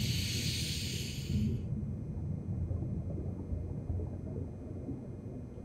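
A low, steady rumble, with a soft hiss of noise over it for the first second and a half that then fades out.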